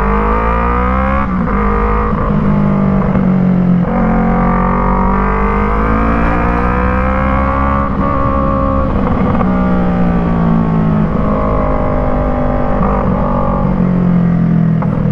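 Yamaha MT-03 parallel-twin exhaust through an Arashi aftermarket pipe fitted with a dB killer, the bike under way: the note climbs with revs and drops back at each gearchange, about five times. The dB killer muffles the otherwise very loud pipe into a low rumble.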